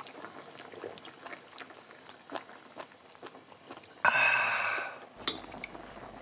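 Light clicks and clinks of spoons, chopsticks and bowls at a meal around a pot of hot-pot stew, with a louder noisy burst about a second long about four seconds in.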